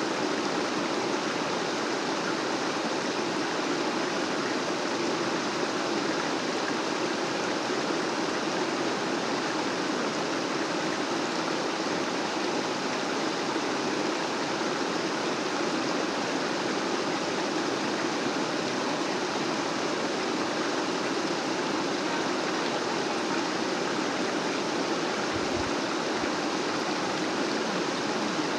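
Rain-swollen floodwater rushing steadily, with no break or change.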